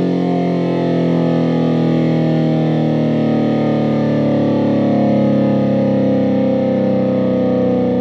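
Federal Signal SD-10 dual-tone outdoor warning siren sounding a loud, steady chord, its pitch drifting slightly lower.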